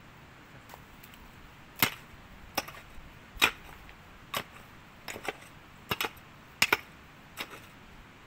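A digging tool striking stony ground, about a dozen sharp strikes at irregular spacing, some in quick pairs.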